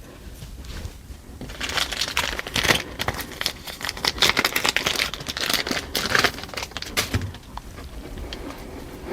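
Crinkling and rustling of packaging being handled, a dense run of crackles from about a second and a half in that thins out near the end.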